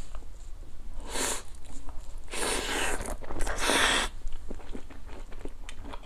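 A man eating square fish cake from kimchi stew: biting and chewing with wet mouth clicks, and three short breathy hisses near the middle.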